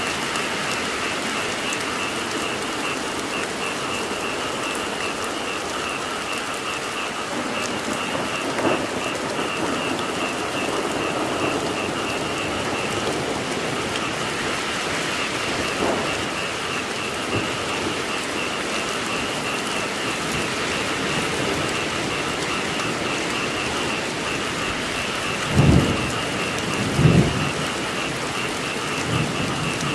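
Steady rain falling, with frogs calling in a continuous high-pitched chorus behind it. Near the end come two short low thumps about a second apart.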